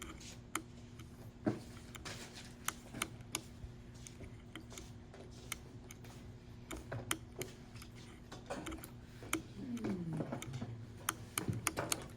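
Irregular light clicks of small input switches on a breadboard circuit being flipped by hand, stepping the four inputs through a binary count, over a faint steady low hum.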